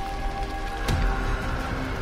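Background music score over the crackling of a large house fire, with a sharp crack a little less than a second in.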